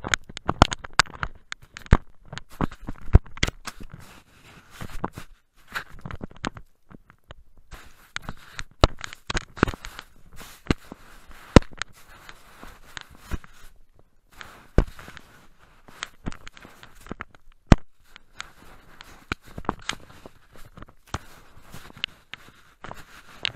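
Irregular knocks, clicks and scraping right against the camera's microphone, a few a second with brief pauses: the camera being bumped and rubbed at close range.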